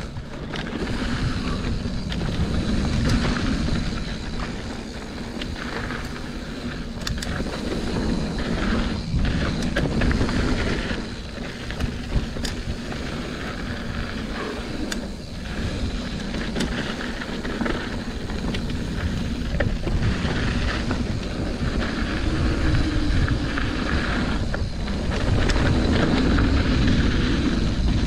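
Mountain bike riding down a dirt flow trail: tyres rolling over dirt and gravel with wind rumbling on the microphone, and scattered sharp clicks and knocks from the bike over the terrain.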